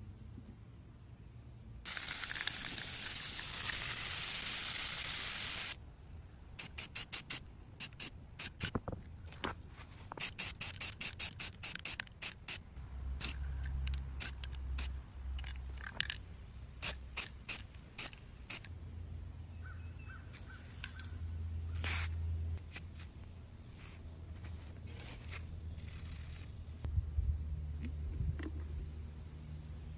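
Aerosol spray-paint can hissing: one long spray lasting nearly four seconds starting about two seconds in, then a run of many short, quick spray bursts, with fainter scattered sprays near the end.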